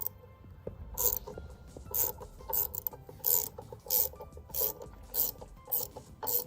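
Ratchet wrench worked in short repeated strokes, a brief rasping ratchet burst roughly every half second.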